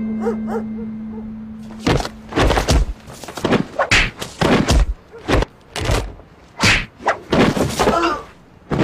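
A scuffle: a rapid, irregular run of about a dozen thumps and whacks, like punches and body blows, starting about two seconds in. A held musical note fades out before the first blow.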